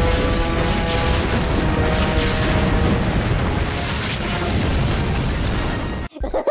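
Cartoon sound effects for clashing energy beams: a continuous, noisy blast with a heavy low end, over background music. It breaks off suddenly near the end.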